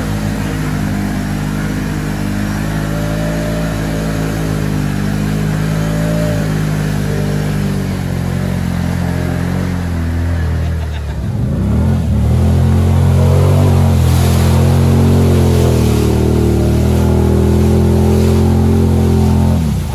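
Can-Am ATV V-twin engine running under throttle, getting louder about halfway through and then holding steady at higher revs.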